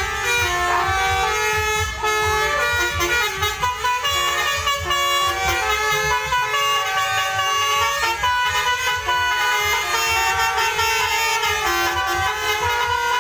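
Telolet bus horn: a bus's multi-tone musical air horn playing a tune of quickly changing notes, over a low engine rumble.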